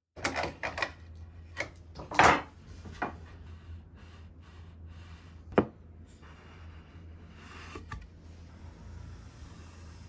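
Hands handling wooden boards: fingers rubbing along a sawn pine edge, with a few light wooden knocks early on, a louder scrape about two seconds in and one sharp knock about halfway through. A steady low hum runs underneath.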